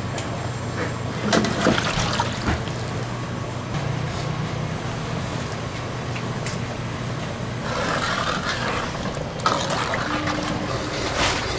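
Kitchen noise around a wok of tteokbokki cooking on a gas range: a steady low hum from the burner or exhaust fan, liquid sloshing and simmering in the sauce, and a few sharp clinks of the ladle and pan.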